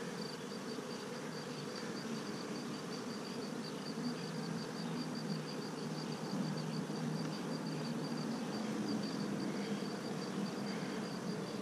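Honey bees buzzing steadily around an opened hive as their comb frames are lifted out, a continuous hum that swells slightly toward the middle.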